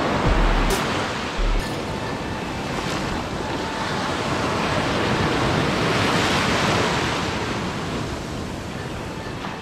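Surf washing on a beach, a steady rush that swells and then fades away near the end, with low buffets of wind on the microphone in the first couple of seconds.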